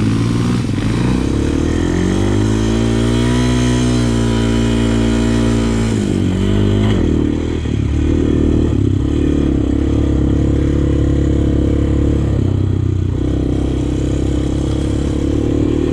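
Honda TRX400X sport quad's single-cylinder four-stroke engine running under throttle on a trail hill. The engine note climbs in pitch about two seconds in, drops back with a brief dip around six seconds, then holds steady.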